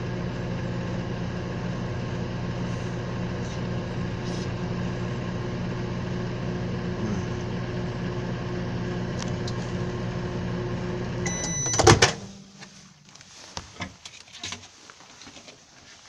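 Microwave oven running with a steady hum. About eleven seconds in it stops with a short high beep and a sharp clunk, the door opening, followed by faint clicks and rustles as the paper plate is handled.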